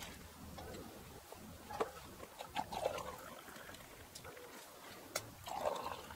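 Hot water poured from a cast-iron kettle into metal camp mugs, with a few sharp metallic clicks and knocks as the kettle and mugs are handled.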